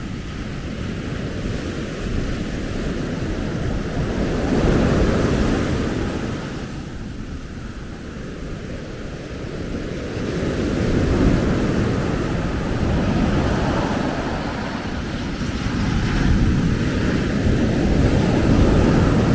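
Surf washing up the beach and wind rushing over the microphone: a steady rush that swells and eases every several seconds.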